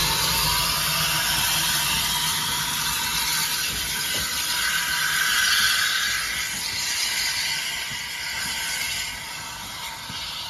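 Small GWR saddle-tank steam locomotive, No. 1340 'Trojan', moving off with its cylinder drain cocks open: a loud, steady hiss of escaping steam that grows fainter over the last few seconds as the engine draws away.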